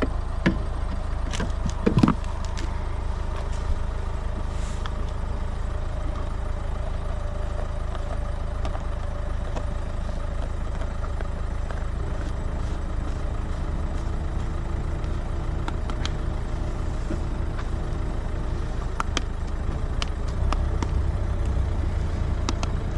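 Generator running steadily: a low, even engine drone with a faint hum. A few light clicks and knocks sound over it, the loudest about two seconds in.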